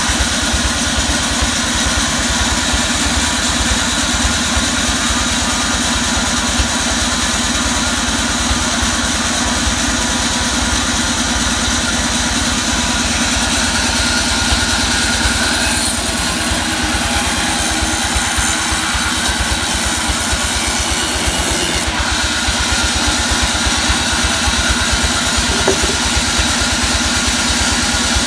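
Vertical band sawmill running steadily, free-running between cuts while a mahogany log is brought to its table. A brief change in the high hiss comes about halfway through, and a single click follows a few seconds later.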